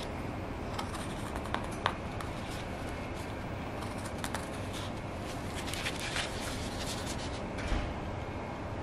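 Small knife paring shavings from a birch-wood cup: a run of short, irregular scraping cuts, one now and then sharper than the rest, over a steady low background noise.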